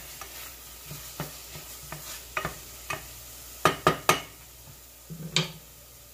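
Wooden spoon stirring chopped onion and garlic frying in olive oil in a stainless steel saucepan, with a light sizzle and a string of sharp knocks of the spoon against the pan, loudest as three quick knocks about four seconds in.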